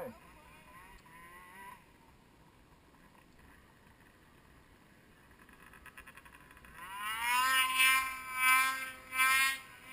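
Snowmobile engine revving up about seven seconds in: a whine that climbs in pitch, then holds with surges of throttle. Before that, only faint engine sound.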